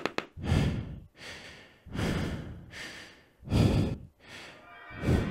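A person breathing heavily, with about six loud breaths roughly a second apart.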